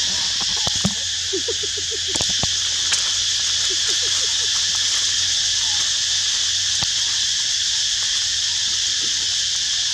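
Steady, high insect chorus, with dry leaves crackling and scattered clicks as baby macaques wrestle in the leaf litter. Twice, early on and again around four seconds in, there is a short run of about five quick low chirps.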